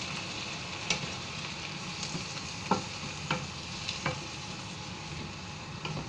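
Chicken curry simmering and sizzling in a frying pan, stirred with a wooden spatula that knocks against the pan about six times.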